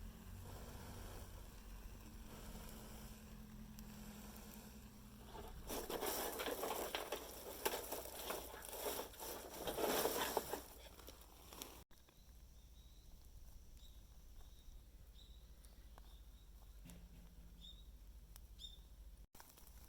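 Dry fallen leaves rustling and crackling, loudest and densest for about five seconds in the middle, with only faint scattered crackles after that.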